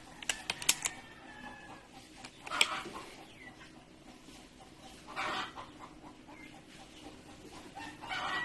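Chickens clucking in short calls about every two and a half seconds, after a quick run of sharp clicks near the start.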